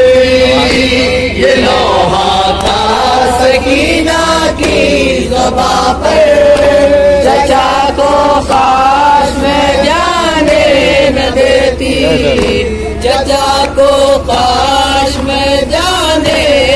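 Men chanting a nauha, a Shia Urdu lament, through a microphone and loudspeaker, with other voices joining the chant.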